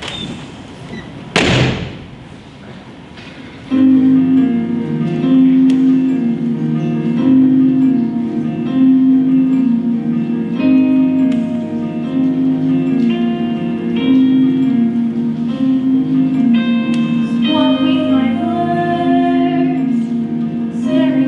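A single thud about a second and a half in. Then, about four seconds in, instrumental music for a stage musical begins: a steady accompaniment alternating between two low notes, with higher melody notes over it.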